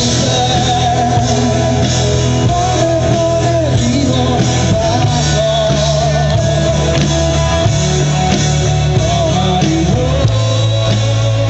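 Live rock band playing through a PA system: a singer's voice with a wavering melody over electric guitars and steady bass notes.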